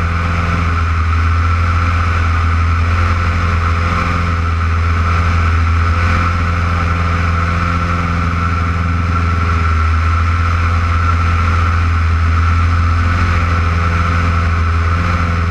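Single-engine propeller airplane in steady cruise: the piston engine and propeller drone evenly, mixed with wind rushing over the wing-mounted camera.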